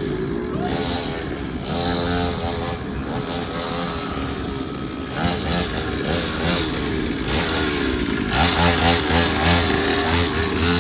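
Several motorcycle engines running and revving at once, their pitches rising and falling over one another, louder from about eight seconds in.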